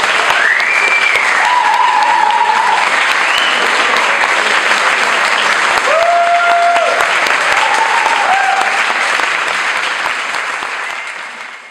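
Audience applauding after a tango performance, with voices calling out over the clapping. The applause fades out over the last couple of seconds.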